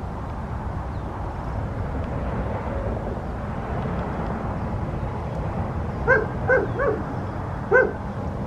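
An animal barking: four short barks, three in quick succession and a fourth about a second later, over a steady low rumble.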